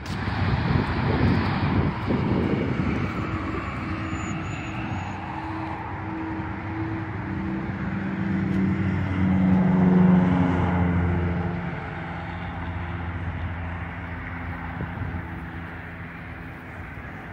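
An aircraft passing overhead: a steady engine rumble with a humming tone that slowly drops in pitch. It is loudest about ten seconds in, then fades.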